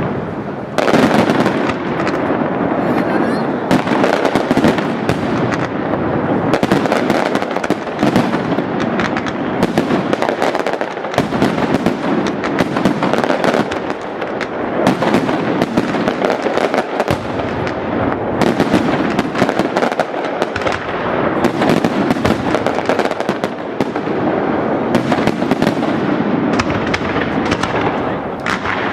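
Aerial fireworks display: a continuous barrage of shell bursts, many overlapping bangs a second with no pause.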